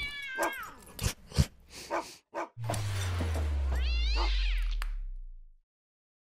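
Logo sound effects: a cat's meow tailing off, a few short clicks and knocks, then a low falling hum with a second meow about four seconds in. The sound cuts off suddenly.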